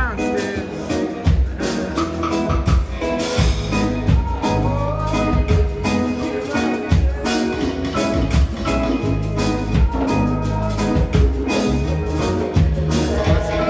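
A live band playing amplified music at a sound check: a drum kit keeping a steady beat over low bass notes and other instruments.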